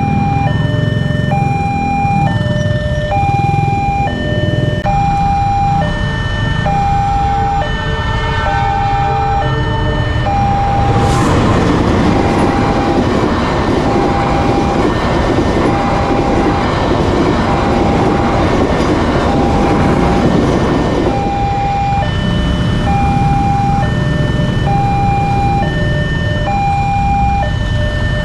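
Railway level-crossing alarm ringing a two-tone electronic chime, alternating high and low about once a second, over the low running of waiting motorcycles and cars. From about ten seconds in, the Argo Parahyangan passenger train passes for about ten seconds, its wheels on the rails loudly covering the alarm.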